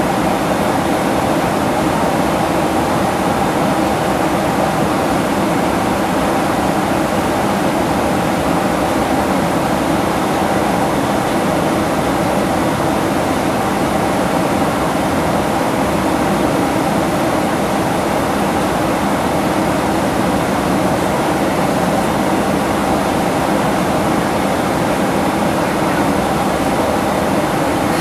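Steady in-flight cabin noise of a Boeing 767-300ER jetliner: the engine and airflow drone heard from an economy seat, an even rush with a faint low hum running through it.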